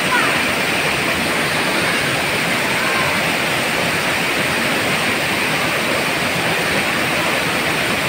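A tall waterfall pouring into its plunge pool, with a small cascade running over rocks close by: a steady, even rush of water.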